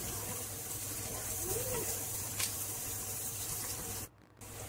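Chopped onions sizzling gently in hot oil in a pot as they are stirred, with a single light tap about halfway through. The sound drops out briefly near the end.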